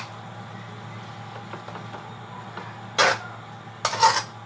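Short bursts of kitchen clatter at the stove, one about three seconds in and another pair near the end, over a steady low hum.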